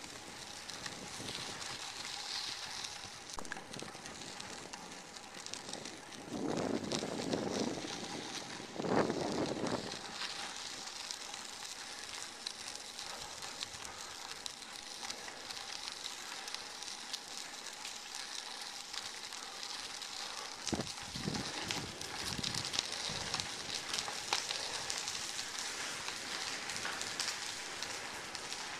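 Steady crackling hiss of bicycle tyres rolling over a gravel trail. Two louder rushes come about seven and nine seconds in.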